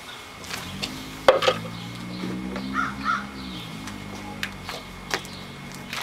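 Sharp plastic clicks and knocks as the dust cup and filter housing of a Bissell PowerForce upright vacuum are handled and pulled off, the loudest about a second in. A bird calls twice in the background near the middle, and a low hum swells and fades.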